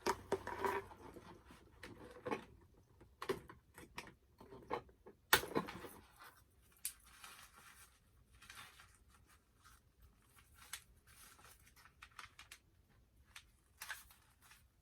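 Toy packaging and small doll accessories being handled and unpacked: scattered rustling, scraping and light clicks, with one sharp click about five seconds in.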